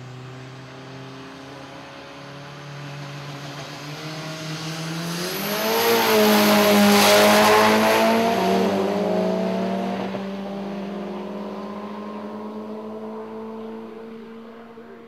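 Two drag-racing cars launching from the start line and running down the strip. Their engines hold a steady note while staged, then rise sharply in pitch and loudness as they pass close by about six seconds in, and fade as they pull away toward the finish.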